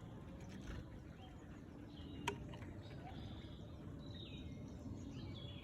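Small birds calling faintly, with short high chirps and a few quick downward-sliding notes, over a steady low background rumble. There is one sharp click a little over two seconds in.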